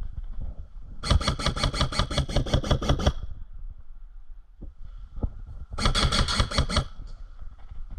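Airsoft rifle firing two full-auto bursts at about ten shots a second: a two-second burst about a second in, then a shorter one-second burst near the end.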